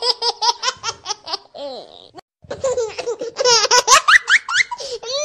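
A baby laughing in quick, high-pitched repeated bursts, breaking off briefly about two seconds in, then laughing again with rising squeals.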